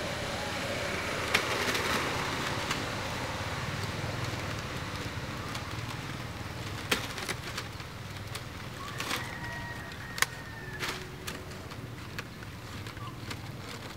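Outdoor background noise with a steady low hum and a few sharp clicks scattered through, the loudest about a second in, about halfway and about ten seconds in.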